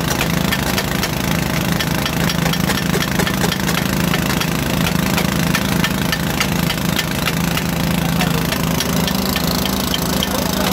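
Engine of a small water-well drilling rig running steadily, with a continuous hum and a fast, regular ticking over it.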